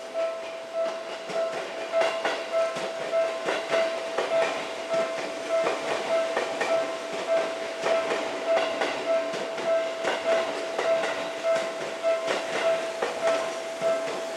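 Japanese level-crossing alarm ringing a rapid, evenly pulsed electronic bell tone, over the irregular clicking of a Seibu 4000 series train's wheels as it runs slowly across points and rail joints.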